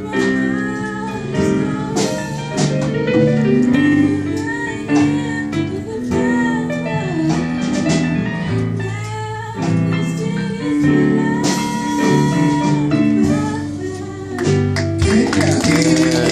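A young woman singing into a handheld microphone over instrumental accompaniment, holding one long note a little past the middle.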